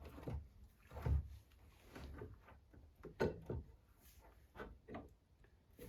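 Irregular clunks and knocks of metal suspension parts being shifted and worked into place as a classic Mini's radius arm is fitted.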